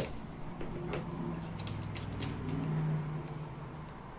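Metal and plastic parts of a Graco Fusion AP spray foam gun being handled and fitted together by hand: a sharp click at the start, then several lighter clicks and taps, over a low steady hum.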